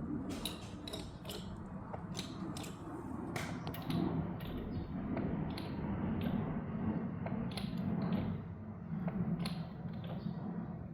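A jack lifting an LVL beam: irregular sharp clicks and knocks over a low, steady rumble.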